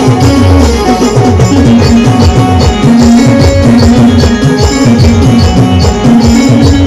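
Timli folk band music: fast, driving drums and shaken percussion under a held, repeating melody line.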